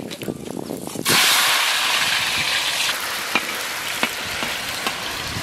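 Shredded potato frying in hot oil in a large aluminium karahi. The oil starts sizzling loudly and suddenly about a second in, as the potato goes in, then keeps on sizzling, easing slightly. A metal spatula clinks against the pan a few times.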